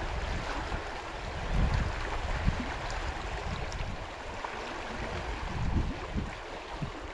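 Small freestone stream running over a shallow gravel riffle: a steady rushing of water, with occasional low rumbles on the microphone.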